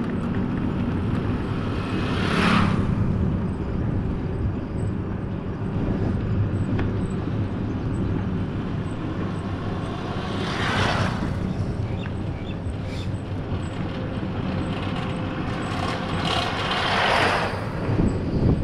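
Steady engine and road noise of a vehicle driving along a road, with three brief louder rushes of noise: about two seconds in, near the middle, and near the end.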